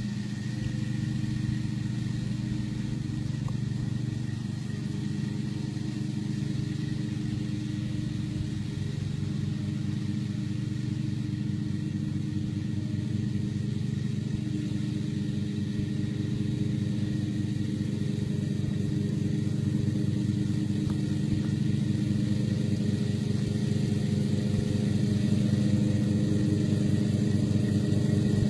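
Westwood T1200 ride-on lawn tractor's engine running steadily while mowing wet grass, growing gradually louder as the tractor comes closer.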